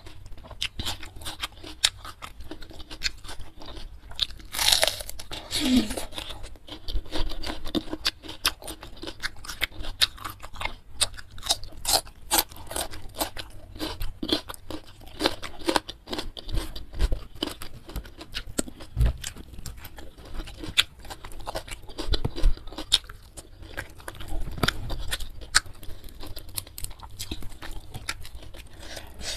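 Close-miked chewing of crunchy food (raw green vegetables with fried fish and rice), with many sharp crunches and wet mouth sounds. A short falling vocal sound comes about five seconds in.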